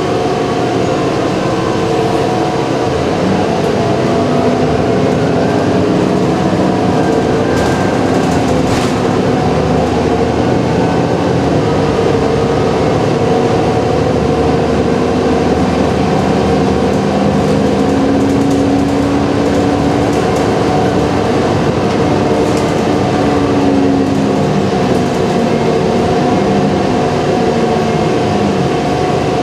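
Cabin noise inside a moving Walt Disney World transit bus: a steady engine and drivetrain hum over road rumble, with a lower tone that drifts up and down in pitch as the bus changes speed and a few brief knocks about eight seconds in.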